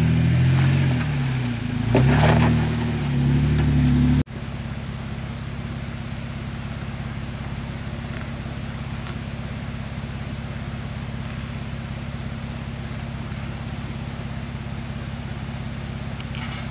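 Jeep Wrangler JK's V6 engine revving up and down as it crawls over rocks. About four seconds in, the sound cuts abruptly to a quieter Jeep engine idling steadily.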